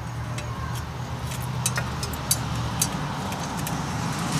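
Scattered light metallic clinks of bolts and a hand tool while a turbo manifold is bolted onto the engine, over a steady low hum.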